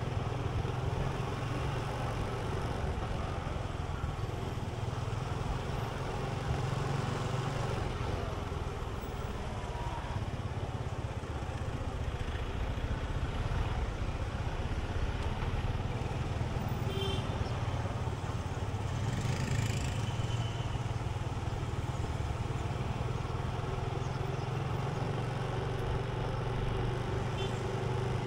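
Steady motor-vehicle and road traffic noise: a continuous low engine hum under an even rush of road noise.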